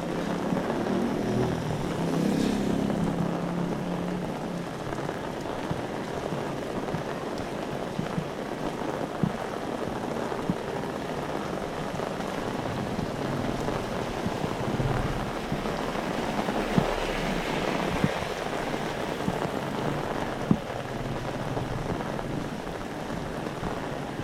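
Heavy rain pouring steadily on a street, with a few sharp clicks standing out now and then.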